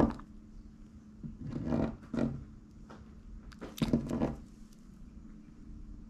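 Rubbing and rustling of hands working thick monofilament fishing line as a looper knot is pulled tight, in two short spells: about a second and a half in and again around four seconds in.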